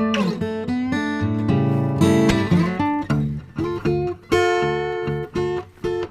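Acoustic guitar music, plucked and strummed notes with a few bent notes.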